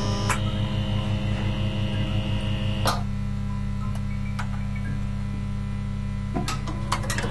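Steady electrical mains hum with a low buzz that pulses about four times a second for the first three seconds, then holds steady. A few sharp clicks break through: once just after the start, once about three seconds in, and a quick cluster near the end.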